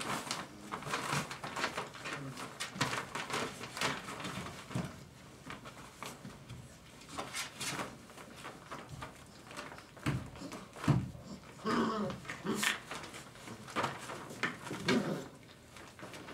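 Five-week-old Dogo Argentino puppies moving about a whelping box: many quick clicks and scuffles of paws and claws on the wooden floor and shredded paper, with a few short puppy vocalizations about two thirds of the way in and near the end.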